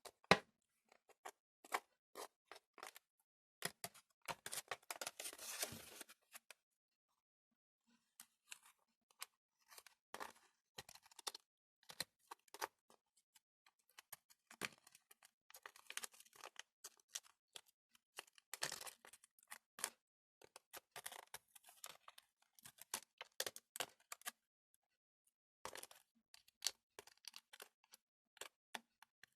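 Small clicks and crackles of a thin plastic candy tray being pressed and handled as set jelly is picked out of its cells, with a denser run of crackling about four to six seconds in.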